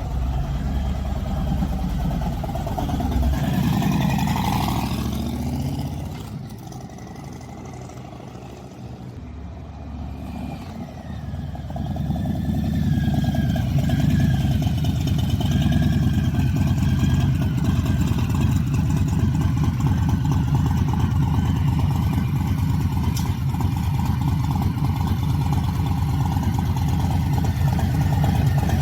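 Harley-Davidson Low Rider S V-twin running through a freshly fitted Bassani Road Rage III 2-into-1 exhaust. It revs up in the first few seconds, drops quieter for several seconds, then runs steadily and loudly from about twelve seconds in.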